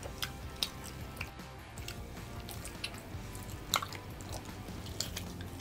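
A person chewing a bite of sauce-coated bakso with wet, sticky mouth noises. Sharp smacks and clicks come now and then, the loudest a little under four seconds in.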